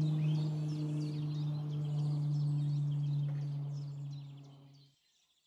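Songbirds chirping over a steady low hum, the loudest sound. Both fade out and stop about five seconds in.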